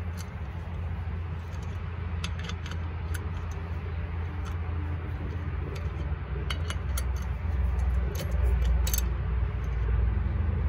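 A hand ratchet wrench turning bolts threaded into a rusty rear brake drum: scattered, irregular metallic clicks of the ratchet and socket. A steady low rumble runs underneath.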